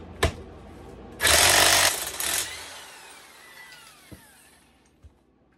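Corded electric impact wrench on the flywheel nut of a Johnson Evinrude 130 outboard: a sharp click, then the wrench hammering loudly for under a second before its motor winds down with a falling whine that fades out.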